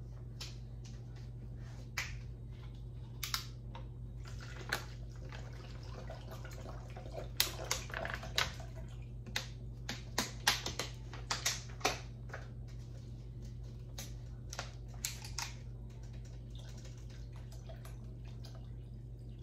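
A plastic water bottle being handled and opened: irregular sharp crinkling clicks of the thin plastic and the twisting cap, thickest in the middle, over a steady low hum.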